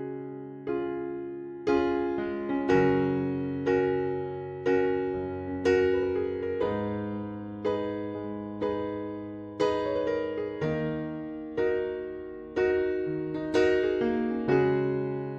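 Gentle piano music: sustained chords struck about once a second, each ringing out and fading before the next.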